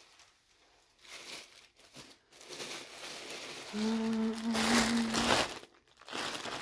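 Clear plastic poly bag around a garment crinkling and rustling as it is handled, in scattered bursts that are loudest near the end. A steady hummed note, about a second and a half long, sounds over the rustling a little past the middle.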